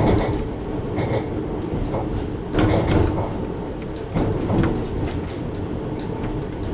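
Interior of a moving D-Train, a converted London Underground D Stock unit: a low running rumble from the carriage with irregular knocks and rattles, loudest about two and a half to three seconds in.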